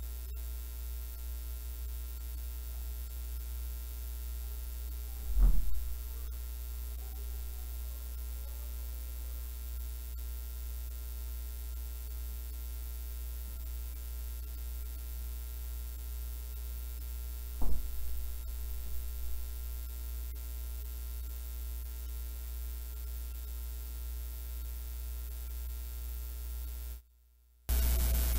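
Steady low electrical mains hum, with two brief knocks, one about five seconds in and another about eighteen seconds in. The hum cuts off near the end.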